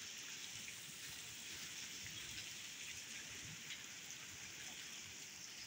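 Rain falling steadily: an even hiss of rain on the ground and surrounding surfaces.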